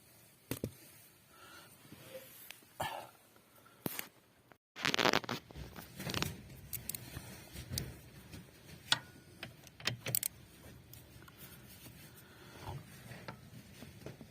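Scattered metallic clicks, knocks and scrapes of a ratchet with a 13 mm socket being worked onto the bolts of a Lada Granta's steering shaft universal joint. The bolts are being tightened to cure play in the joint that makes the steering knock.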